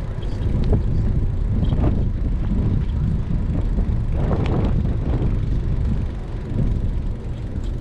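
Steady low rumble of wind buffeting a GoPro's microphone during a bicycle ride, mixed with the rolling noise of the ride.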